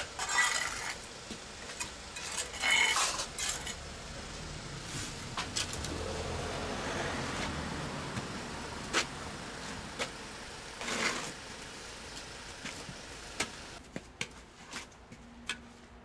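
Metal shovel and trowel scraping and clinking through cement mortar on concrete, in several rough scrapes with scattered sharp clicks. A low rumble swells and fades in the middle.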